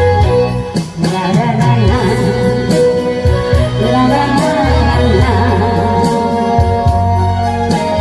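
Loud live music: a singer with keyboard and bass accompaniment, and regular drum strikes.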